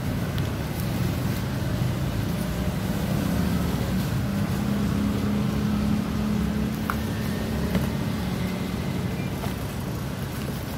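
A motor vehicle engine running, a steady low rumble with a low hum that holds for a few seconds in the middle.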